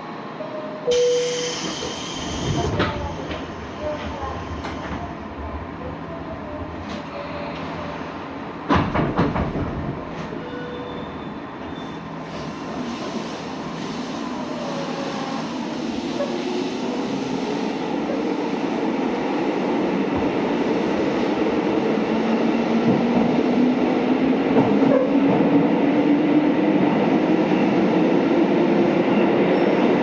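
JR 205 series electric train pulling away and accelerating in a tunnel. A short hiss of air comes about a second in and a knock around nine seconds. Then the motor and gear whine climbs steadily in pitch and loudness as it gathers speed, with the rumble of the wheels echoing off the tunnel walls.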